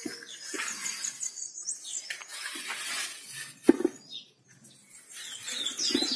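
Small birds chirping in quick high notes, with a sharp knock a little past halfway and a softer one near the end over light handling noise.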